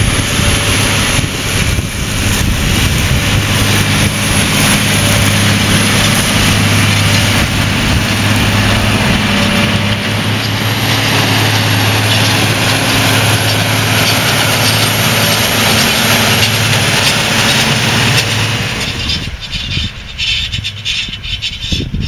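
Massey Ferguson 8690 tractor's six-cylinder diesel engine working under load while pulling a Väderstad Top Down cultivator, a steady drone with a broad rushing noise. It is loud as the tractor passes close by and drops away about three seconds before the end.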